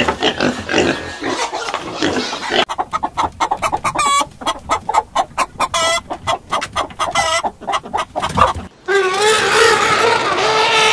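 Chickens clucking in quick, short calls, followed near the end by one long drawn-out call.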